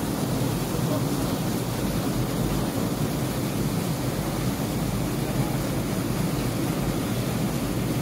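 Waterfall water plunging and churning into a rock pool, a steady low rush that does not let up.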